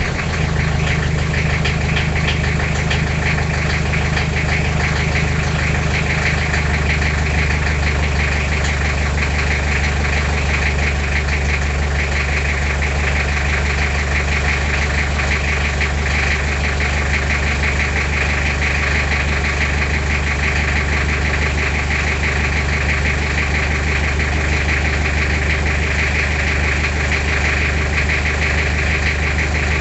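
Toyota 2L 2.4-litre four-cylinder diesel idling steadily just after a cold start, with a fast, even knock running through it. One of its original glow plugs is thought by the owner not to be working. The idle note shifts slightly about six seconds in.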